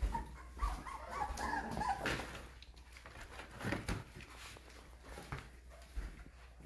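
American bully puppies whimpering: wavering high whines during the first two seconds, then scattered light knocks and shuffling.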